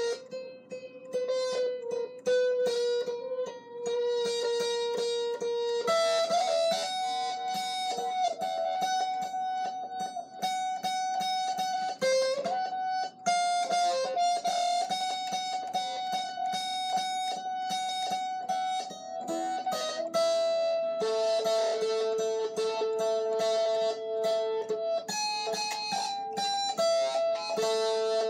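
Guitar played solo, single notes plucked and left to ring over a continuous melody, with no singing.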